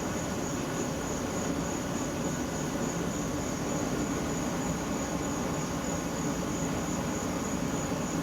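Homemade venturi gas burner running with the gas turned up: a steady low rumble with hiss. The flame is ragged, which the builder puts down to the air intake, the 8-inch tube length or the flare.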